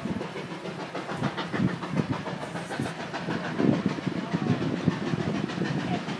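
Steam train going by, its wheels and carriages making a steady, rapid clatter on the track.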